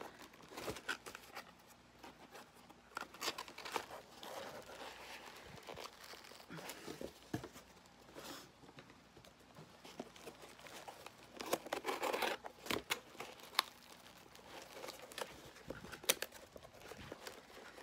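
Cardboard boxes and plastic packing being handled and unpacked: scattered rustling, crinkling and small scrapes and clicks as a small cardboard box is lifted out and its flaps worked open, with a louder flurry of rustling a little past the middle.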